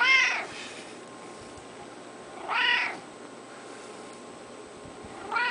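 Domestic cat meowing as it is petted: three short meows, evenly spaced about two and a half seconds apart.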